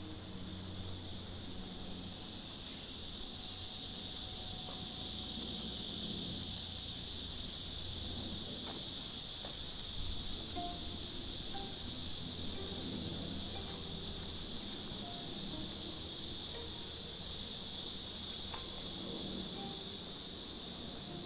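Cicadas droning in the trees: a continuous high-pitched chorus that swells over the first several seconds and holds steady.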